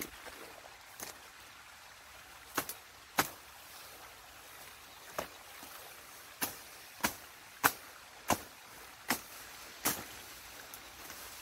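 Sticks and branches of a beaver dam cracking and snapping as they are pulled apart by hand: about ten sharp cracks, a few scattered at first, then roughly one a second in the second half.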